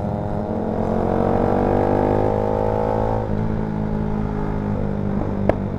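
Honda Sonic 150R's single-cylinder engine running through a fairly quiet exhaust while riding, revs climbing for about three seconds and then dropping abruptly, with one sharp pop from the exhaust near the end.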